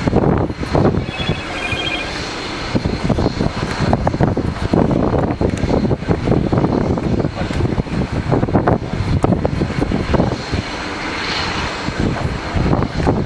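Boeing 747's four jet engines running, a loud, uneven rumble.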